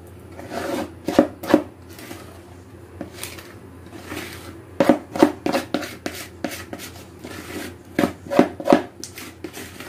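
Large spoon scraping and knocking against a mixing bowl as cake batter is scraped out into round cake pans: a run of irregular taps and scrapes, thickest about halfway through.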